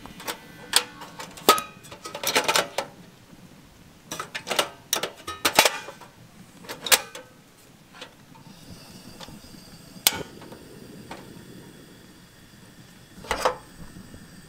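Irregular metal clinks and knocks of a tin can and camp cookware being handled, some short and ringing; they come thickly for the first seven seconds or so, then thin out, with a couple of louder knocks near the end.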